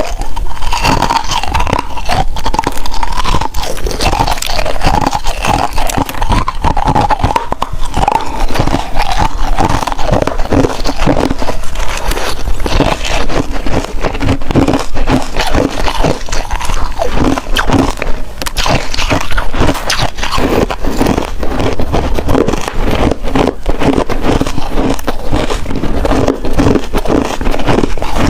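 Close-up crunching of hard ice being bitten and chewed: a rapid, irregular run of sharp cracks and crackles, without a break.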